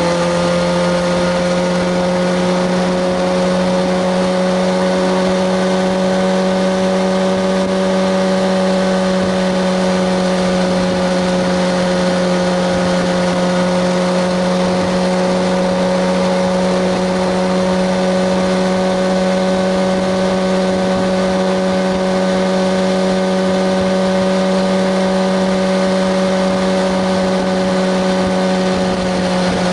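Kawasaki ZX-6R 636 inline-four engine running at steady, nearly unchanging revs under way, with a constant rushing noise beneath it.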